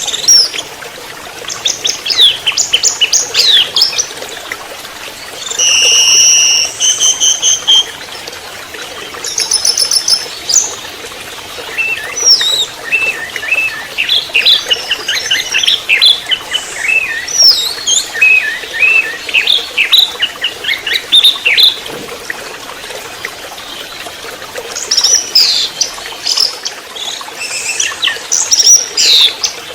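Orange-headed thrush singing a long, varied song of fast chirps and trills, broken by a few held whistled notes about six to ten seconds in, and a quieter pause in the middle.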